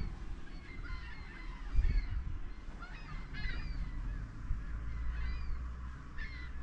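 Birds calling outdoors, a scatter of short rising-and-falling calls, with wind rumbling on the microphone.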